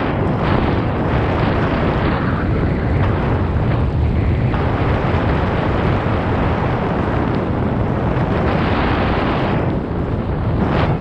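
Wind buffeting the microphone of a handlebar-mounted action camera on a moving mountain bike: a loud, steady rushing noise, with the tyres rolling on the paved path underneath.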